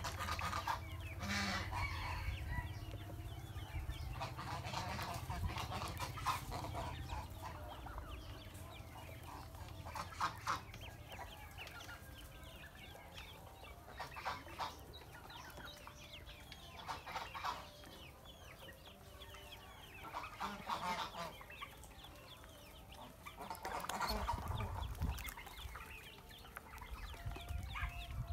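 A group of ducklings peeping continually, many short high calls overlapping, with louder spells every few seconds.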